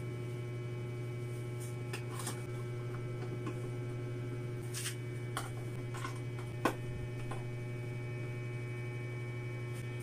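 Plastic junction-box cover being handled and pressed onto a wired box, with scattered light clicks and taps and one sharper click about two-thirds of the way through, over a steady electrical hum.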